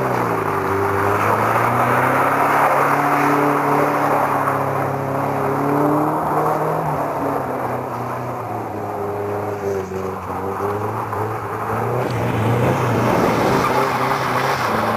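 Car engine revving hard, its pitch rising and falling as the car is held in slides on loose dirt, with a steady noise of the tyres skidding through the dirt.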